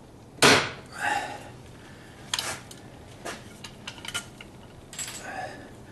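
Hand pop-rivet gun setting an aluminum rivet in a steel bracket: one sharp, loud snap about half a second in, then lighter metallic clicks and knocks as the tool is worked and pulled away.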